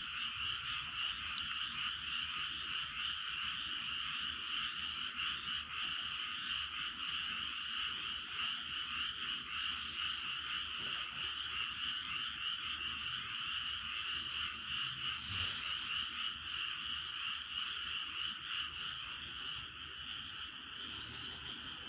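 A dense chorus of many frogs calling at once, a continuous rapid trilling that holds steady and eases off slightly near the end.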